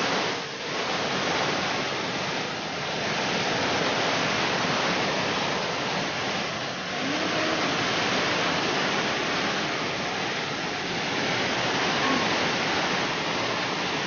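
Waterfall and rocky cascade: a steady rush of falling water.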